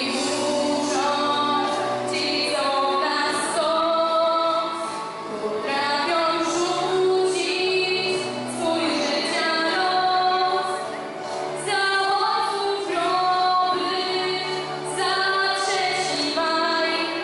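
A girl singing a song solo into a microphone over an instrumental accompaniment with a steady beat.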